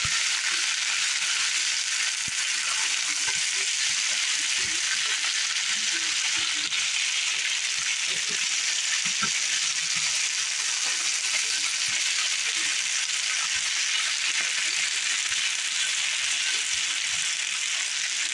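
Thin potato slices sizzling steadily as they pan-fry in a skillet with the lid off. Light scattered knocks and scrapes come from a spatula turning the slices in the pan.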